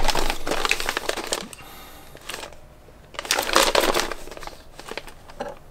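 Plastic bags of resin model-kit parts crinkling and rustling as they are handled, in two bursts: one at the start lasting about a second and a half, and another about three seconds in.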